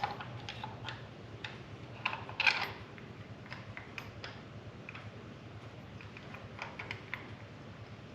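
Scattered light metallic clicks and clinks as the crankshaft damper bolt of a Ford 5.0L V8 is handled and started into the crankshaft by hand, with a louder clatter about two and a half seconds in.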